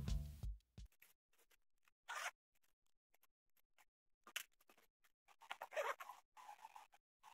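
Background guitar music ends within the first half second, then faint, scattered rustling as a synthetic-fabric pencil case is handled, with a short run of zipper-like scraping near the end as its zipper is pulled.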